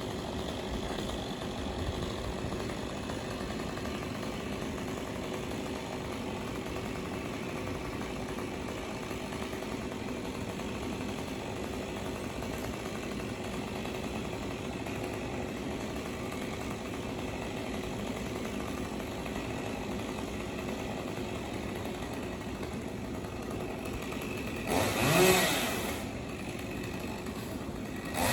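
Chainsaw engine idling steadily, then revved up once briefly near the end.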